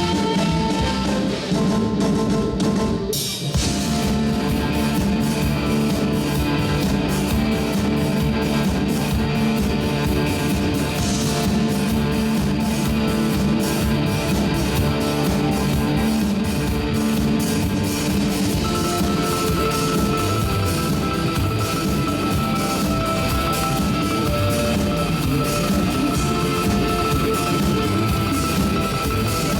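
Rock band playing live, electric guitars over a drum kit. The band cuts out briefly about three seconds in and crashes back in, and a high held note sounds over the band from a little past the middle.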